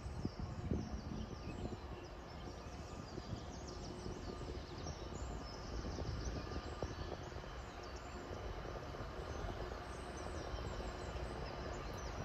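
Outdoor ambience: small birds chirping repeatedly over a low, uneven rumble.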